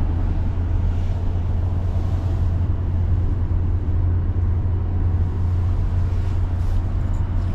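A car driving at a steady speed: a steady, loud, low engine and road drone.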